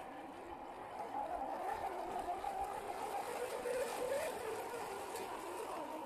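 Electric motor and gearbox of a 1/10-scale RC Toyota Land Cruiser crawler whining, the pitch wandering up and down with the throttle, over water churning and splashing as the truck ploughs through a muddy stream.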